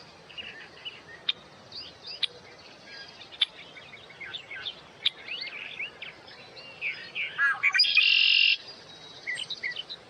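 Several wild birds singing and chirping, with quick high chirps throughout and one louder, buzzy call about eight seconds in that lasts under a second.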